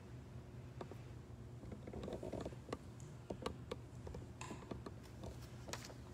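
Faint scattered clicks and a short rustle of movement and handling, over a low steady hum.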